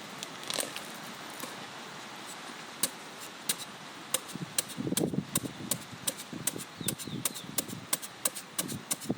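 Hand tools being worked: irregular sharp clicks and light taps, coming more often in the second half, with a cluster of duller knocks about five seconds in.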